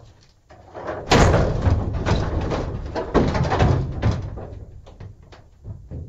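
Hollow metallic banging on a steel dumpster: a hard hit about a second in starts a rapid run of blows for about three seconds, each leaving a low booming ring, then the banging fades, with one more knock near the end.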